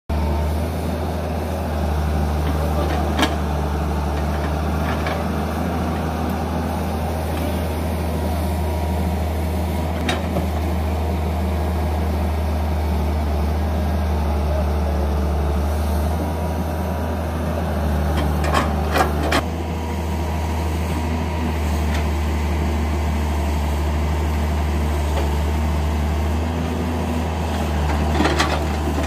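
Caterpillar 120 hydraulic excavator's diesel engine running steadily as it digs, with a few sharp knocks from the bucket and boom working, several close together about two-thirds of the way through.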